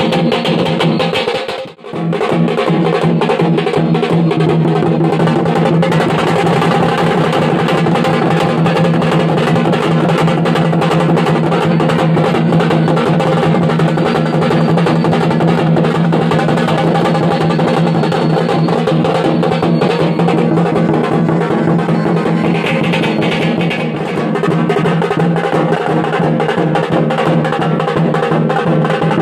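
Music carried by fast, steady drumming and percussion, with a brief dropout about two seconds in.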